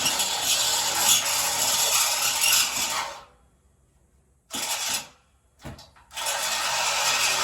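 Drill with a step bit cutting through the steel of a truck frame, running steadily, then stopping about three seconds in, a short burst and a brief spurt, then running steadily again.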